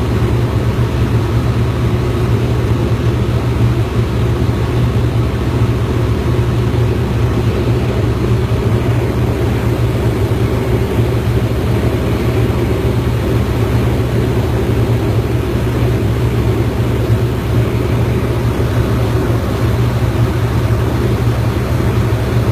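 Light propeller aircraft's engine running steadily in flight, a constant loud drone.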